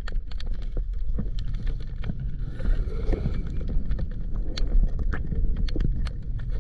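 Underwater sound through a camera housing: a steady low rumble of moving water with many scattered sharp clicks.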